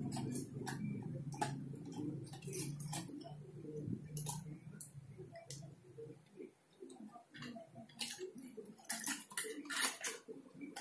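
Irregular small clicks and clinks of metal and plastic Beyblade top parts being handled and snapped together, coming thicker near the end. A low hum sits underneath and fades out about halfway through.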